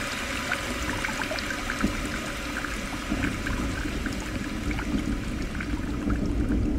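Bathwater trickling in a tub full of foam, a steady hiss with many tiny crackling pops. A low rumble swells in from about halfway through.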